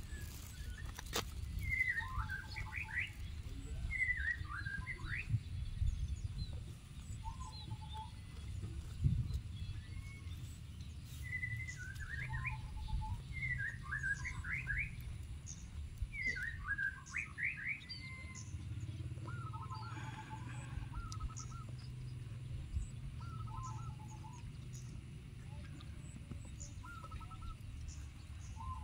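Small birds chirping in short repeated phrases of quick sweeping notes, one phrase every couple of seconds, over a steady low rumble.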